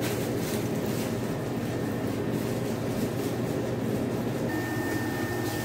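Steady low mechanical drone of a ship's machinery and ventilation. A faint, thin, steady high tone joins about four and a half seconds in.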